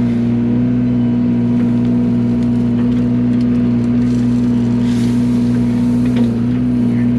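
Yanmar mini excavator's diesel engine running at a steady working speed, with a few faint clicks over its hum.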